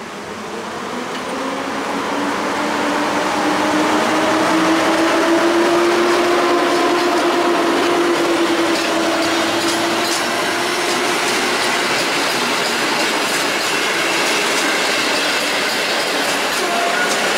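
Passenger train hauled by an electric locomotive rolling slowly past, its coaches clicking over the rail joints. The sound grows louder over the first few seconds as the train draws level, and a drawn-out humming tone rises slightly and then sinks in pitch while the coaches go by.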